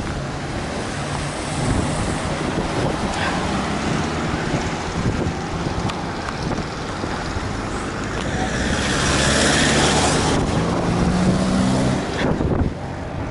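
Road traffic: cars driving past with a steady hum of engines and tyres, one vehicle passing close and loud about nine to ten seconds in.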